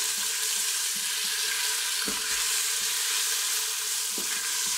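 Chicken pieces searing in hot olive oil in a Ninja Foodi's pot on the sear/sauté setting: a steady sizzle, with the spatula knocking softly in the pot about two and four seconds in.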